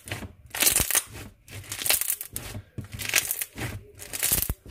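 Pink slime loaded with foam beads being squeezed and kneaded by hand, giving a short burst of crackling with each squeeze, about six in all.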